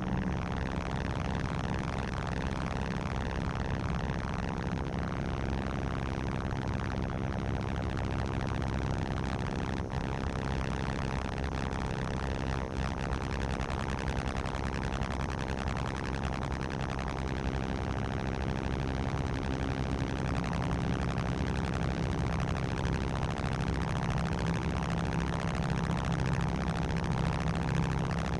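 Improvised droning music from a battery-powered instrument: many layered tones held and shifting slowly, with a short pitch slide about halfway through.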